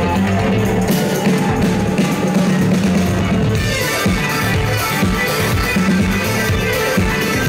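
Loud live band music played through a concert PA, with keyboards and drums; a steady drum beat stands out from about halfway through.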